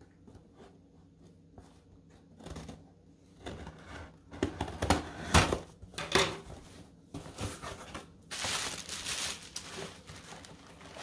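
Scissors snipping open packaging in a few short cuts, then the packaging rustling and crinkling as it is torn open and pulled away, about eight seconds in.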